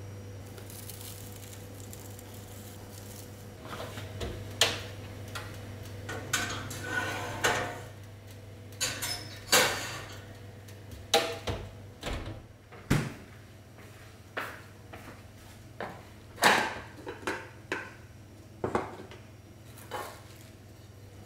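Cookware being handled: a metal baking pan and oven rack clattering as the pan goes into the oven, and dishes knocking on a wooden counter, heard as a string of separate sharp knocks and clinks over a faint steady low hum.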